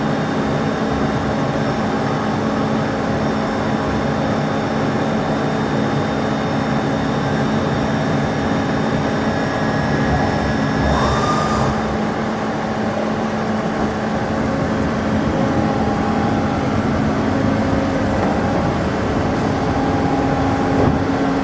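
Heyligenstaedt Heynumat 5UK-800 CNC lathe running, a steady mechanical hum with several fixed tones. A brief rising whine comes about halfway through.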